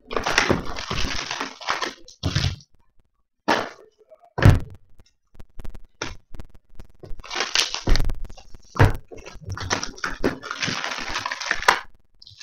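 Clear plastic shrink wrap crinkling and tearing as a sealed hockey card box is unwrapped, in several noisy stretches, with a few sharp knocks of the box and card packs set down on a table between them.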